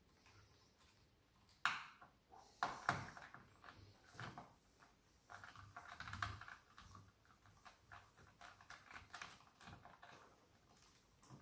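Faint clicks and taps of a screwdriver and hands working on screws in a bread machine's base, with a few sharper knocks about two, three and four seconds in, then a run of small ticks.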